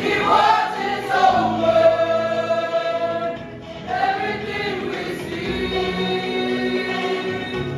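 A church choir singing a gospel song in long held notes. The singing drops away briefly about three and a half seconds in, then comes back.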